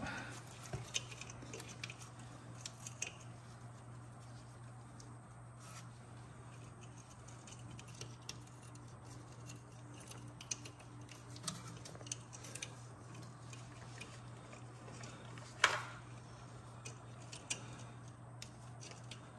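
Faint, scattered clicks and ticks of hand tools and metal suspension parts being handled, over a steady low hum. One sharper knock comes about three-quarters of the way through.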